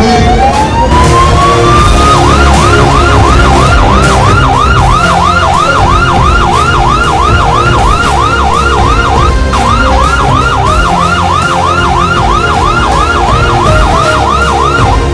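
Electronic vehicle siren: a slow rising wail for about two seconds, then switching to a fast yelp of about two and a half sweeps a second, with a brief break around the middle, over a low rumble.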